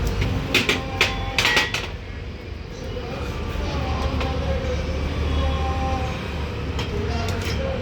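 A steady low mechanical rumble, with a few sharp metallic clicks and knocks in the first two seconds and again near the end.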